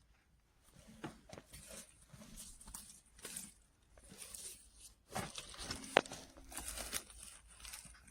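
Faint rustling and light knocks of things being handled, with one sharp click about six seconds in.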